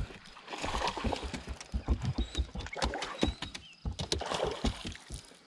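Water splashing with irregular knocks and clatter on a fishing boat as a small hooked bass is played at the surface beside the boat.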